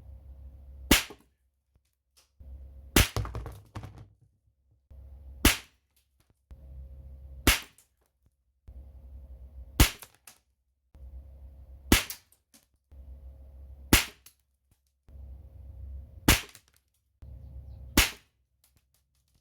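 Gamo Magnum Replay air rifle fired nine times at a brass padlock, one sharp shot about every two seconds, each taking in the pellet striking the lock. Between shots there is low handling noise.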